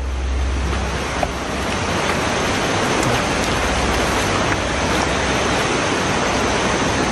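Steady rushing of river water, an even unbroken noise.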